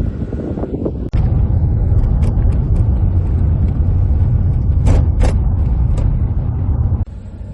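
Road and engine rumble of a moving car, heard from inside. It turns abruptly louder about a second in and quieter again near the end, with a few short knocks or rattles about two and five seconds in.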